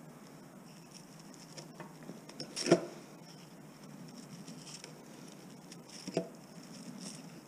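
Thin copper winding wire from a microwave transformer coil being unravelled by gloved hands: faint rustling and light ticks, with one sharp clink about two and a half seconds in and a smaller one near six seconds.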